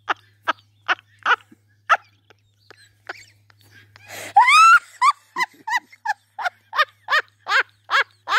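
A person laughing hard: a fast run of short "ha" bursts, about three a second, then a loud, high-pitched shriek about four seconds in that rises in pitch, followed by more quick bursts of laughter.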